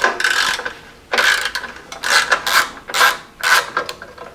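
Socket ratchet wrench clicking in repeated short runs as its handle is swung back and forth, backing out a bolt that holds the recoil starter housing on a small engine.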